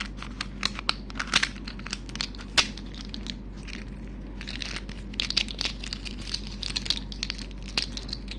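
Rubik's cube being pried apart by hand: an irregular run of plastic clicks and snaps as the pieces pop loose, coming faster from about halfway in.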